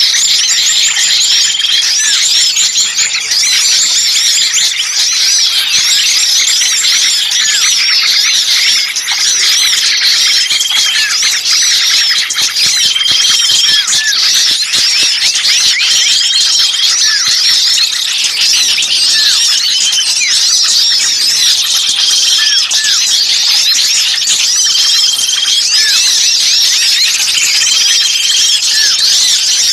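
A dense, noisy chorus of many small songbirds chirping and squeaking at once, with a short, steady whistled note that recurs every two to three seconds. It is a bird-trapping lure recording of small birds calling in alarm, meant to draw other birds in.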